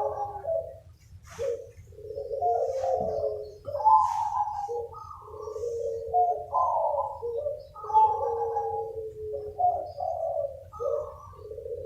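Several zebra doves cooing, their rolling phrases overlapping as the birds answer one another. Brief higher chirps come about a second in and again near four seconds.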